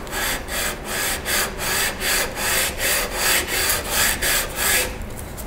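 Cast-iron sole of a Stanley No. 65 block plane being lapped back and forth on 220-grit wet/dry sandpaper, a rhythmic scratchy rasp of about three strokes a second that stops shortly before the end. It is a first pass to flatten the sole and show its high spots.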